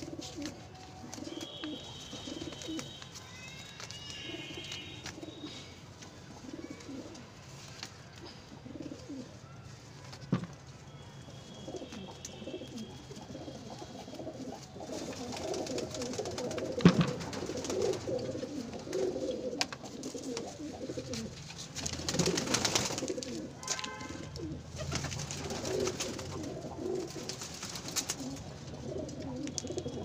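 Domestic pigeons cooing in a loft, many soft overlapping low coos, with a few higher chirping calls and two sharp knocks, the louder one a little past halfway.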